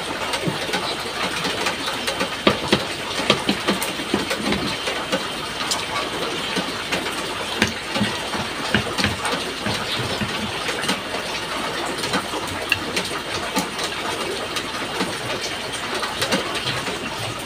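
Eating at a table: chewing, with many small clicks and taps of utensils on plates, over a steady hiss of background noise.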